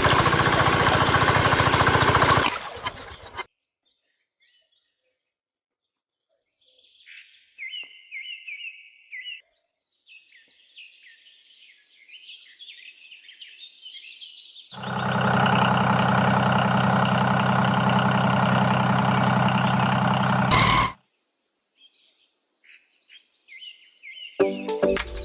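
A small engine running steadily, cut off abruptly about two and a half seconds in. Birds chirp faintly in between, and a second stretch of steady engine running starts midway and stops sharply about six seconds later.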